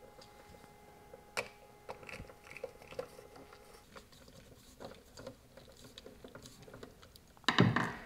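Faint clicks and taps of a screwdriver and wires being handled on a GFCI receptacle as its back-wire terminal screws are tightened, with one sharper click about a second and a half in.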